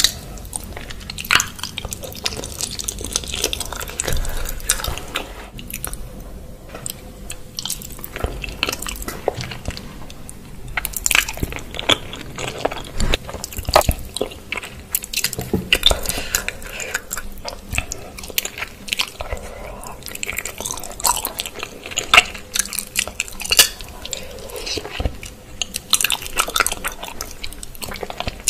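Close-up eating of chicken feet in chili sauce: chewing and biting, full of sharp, irregular clicks.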